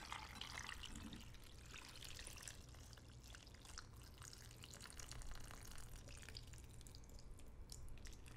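Soy-sauce pickling brine pouring from a ceramic bowl into a glass bowl of sliced avocado and chilies. It makes a faint, splashy trickle for the first couple of seconds, then thins to scattered drips.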